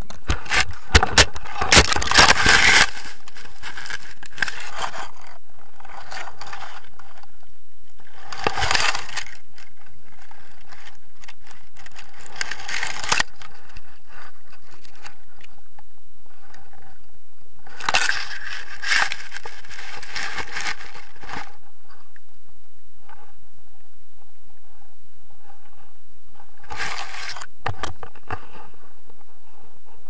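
Wind buffeting an action camera's microphone in several gusts, over a steady rush, with scraping and rustling of the paraglider harness against grass.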